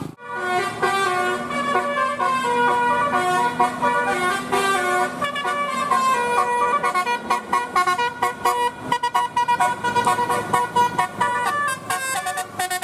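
Indonesian bus telolet horn, a set of electric multi-trumpet air horns, playing a melody of stepped notes that turns into quick, choppy notes in its second half.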